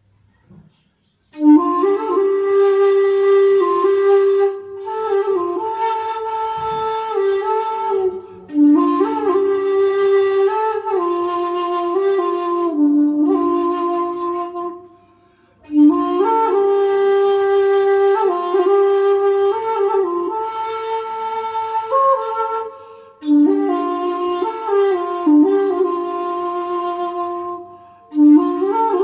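Shakuhachi played solo with a breathy tone: slow phrases of long held notes that slide between pitches. It enters about a second and a half in and plays six phrases, each ending in a short pause for breath.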